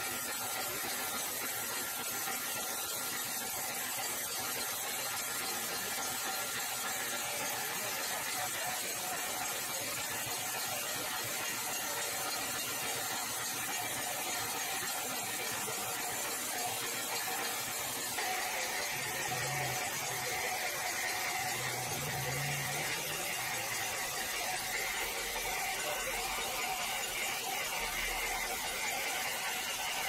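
Horizontal band sawmill blade running through a large log, a steady mechanical hiss and whine with no break; the sound grows brighter and sharper a little over halfway through.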